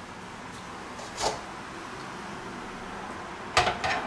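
Short knocks and clatters of kitchen things being handled: one knock about a second in and a quick double knock near the end, over a faint room hiss.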